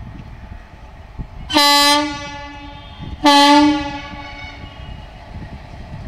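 Indian Railways WAP-4 electric locomotive sounding its horn in two short blasts about a second and a half apart, over the low rumble of the approaching locomotive.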